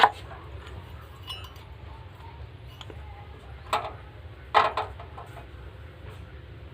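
Metal clinking and knocking as tools and blade parts strike a steel mixer-grinder jar during blade replacement: one sharp clink at the start, another a little before four seconds in, then a short cluster of clinks, over a steady low hum.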